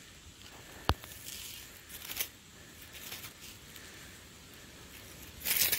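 Faint rustling of dry leaf litter, with a sharp click about a second in and a louder rustle near the end.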